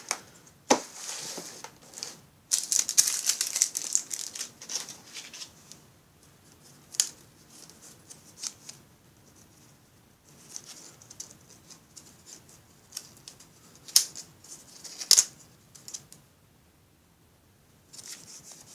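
Handling noise from a plastic reel of LED strip and its connector being worked by hand: a few seconds of scratchy rustling about two and a half seconds in, then several separate sharp clicks and snaps, two of them close together near the end.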